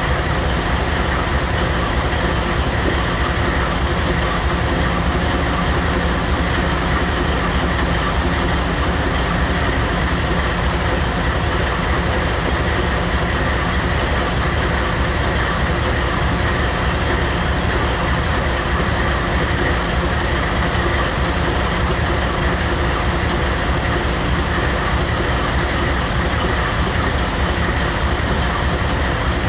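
GE diesel locomotive idling at a standstill, a loud, steady, unchanging engine drone.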